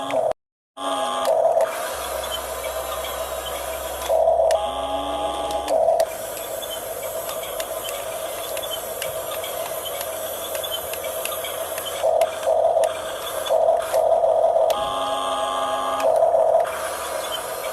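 Huina 1569 RC bulldozer's small electric motors and gearboxes whining steadily, surging louder several times as the tracks and blade are driven. There is a brief dropout about half a second in.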